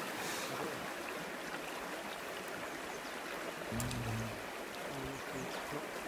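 Creek water rushing steadily over its bed, with a brief faint low tone about four seconds in.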